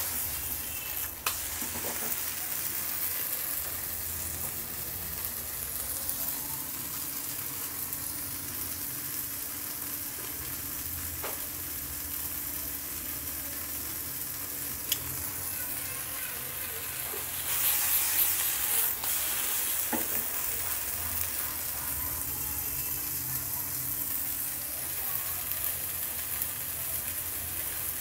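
Fish vorta sizzling as it dry-fries in a black wok over a turned-up gas flame, being browned and crisped, stirred now and then. A few sharp clicks stand out, and the sizzle grows louder for a second or two past the middle.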